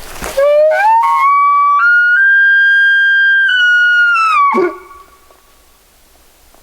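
An elk bugle: a whistle that climbs in steps from a low note to a high, held scream, then breaks and drops to a low note about four and a half seconds in.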